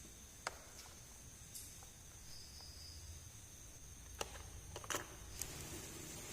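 Miniature plastic toys being handled: a few sharp small clicks and taps, one about half a second in and a cluster in the second half, over a faint steady high hiss.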